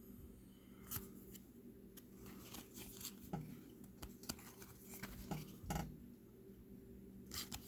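Trading cards being handled and flipped through: faint, scattered light clicks and rustles of card stock.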